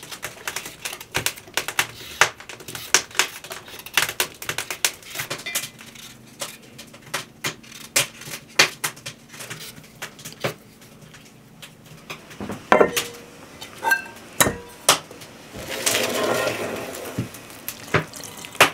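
Small kitchen knife shaving the peel off a raw carrot in quick scraping strokes, with peelings falling into a stainless steel bowl. A few louder clinks ring from the metal bowl about two-thirds of the way through, and water starts pouring from an enamel mug near the end.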